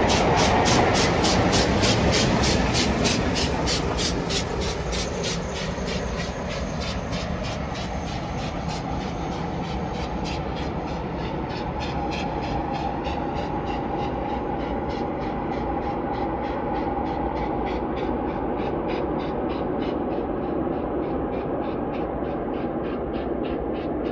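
Coaches rumbling past close by, then a pair of LMS Jubilee class 4-6-0 steam locomotives chuffing in an even beat of about three a second as the train pulls away. The sound drops a few seconds in, then holds steady.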